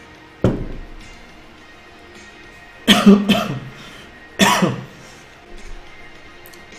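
A man coughing, about four sudden harsh coughs: one about half a second in, two close together about three seconds in, another a second and a half later, over quiet background music.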